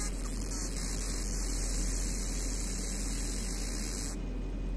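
Steady electrical hum with a hiss over it from a fiber laser engraving machine; the high part of the hiss cuts off suddenly about four seconds in.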